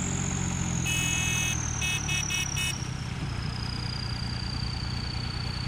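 Tractor diesel engine running steadily, with a thin high whine that falls slowly in pitch. About a second in there is a half-second high beep, then four quick short beeps.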